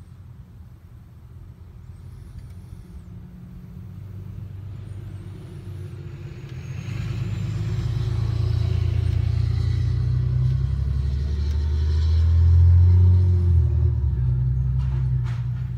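A motor vehicle's engine running close by, growing louder over several seconds to a peak about three-quarters of the way through, then easing off.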